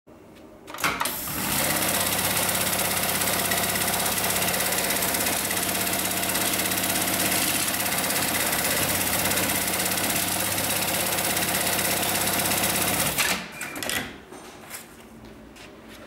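Hightex MLK500-2516 automatic sewing machine stitching seat belt webbing. It starts with a click about a second in and runs at a steady, even stitch rate for about twelve seconds. It stops with a few sharp clunks near the end, and quiet handling of the webbing follows.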